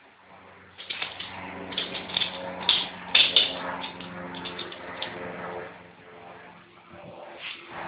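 A West Highland white terrier growling as it worries a biscuit, with a run of sharp clicks and scuffles in the first few seconds.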